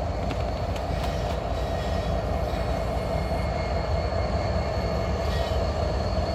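A train moving along the rails: a steady low rumble with a faint wheel whine and a few light clicks.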